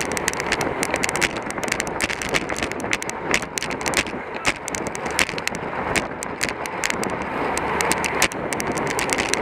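Steady rush of wind over a camera microphone on a bicycle ridden at race speed, with many irregular sharp clicks and rattles throughout.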